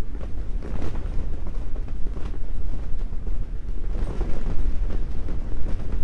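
Strong wind buffeting an ice fishing shack, a loud, unsteady low rumble, with a few brief rustles of the shack's fabric.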